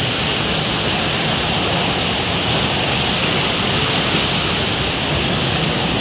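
Steady, even rush of city traffic and street noise, with no distinct events standing out.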